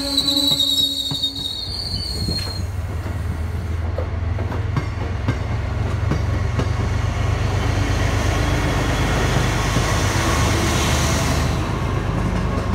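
MBTA commuter rail train's bilevel coaches rolling slowly past. A high wheel squeal fades out about two seconds in, leaving clicking wheels over the rail joints and a steady low rumble that builds as the diesel locomotive at the end of the train draws near.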